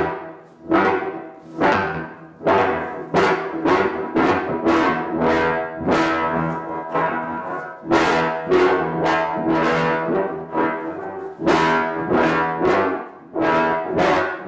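A long black tube swung hard through the air like a bat again and again. Each swing gives a horn-like tone with a rushing whoosh that swells and quickly fades, a little more than one swing a second.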